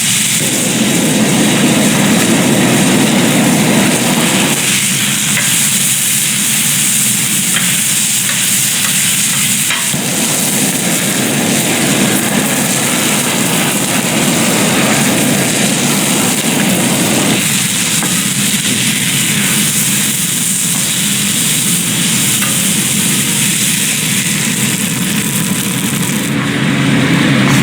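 Food frying and sizzling in hot oil, a steady hiss throughout, with the lower sound dropping away and returning at a few points.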